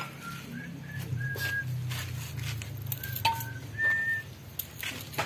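A few short, steady whistled notes at different pitches, over light clicks of metal gearbox parts being handled and a steady low hum.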